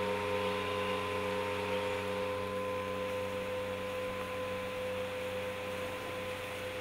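Singing bowls ringing together, several steady tones held and slowly fading.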